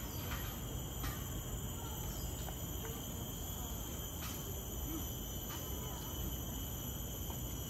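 Steady high-pitched insect chorus, typical of crickets in tropical garden vegetation, holding several unbroken tones over a low background hum. Faint clicks now and then and faint voices of passers-by sit underneath.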